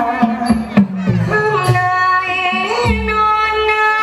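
Thai likay singing: one voice holding long, ornamented notes that bend and slide, over a traditional Thai ensemble with a few sharp percussion strikes.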